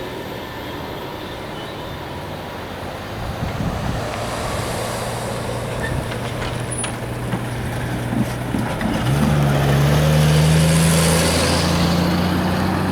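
The tail of a passenger train rolling past with a steady rumble. About nine seconds in, an engine's drone comes in, growing louder and rising slightly in pitch.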